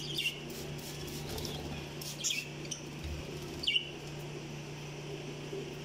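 Budgerigars chirping: a few short, sharp chirps spaced a second or two apart, over a steady low hum.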